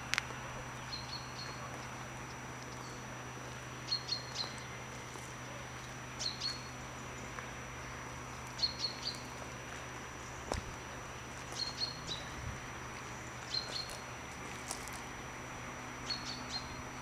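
A small bird repeating a short, high chirp, often doubled, about every two to three seconds, over a steady low hum.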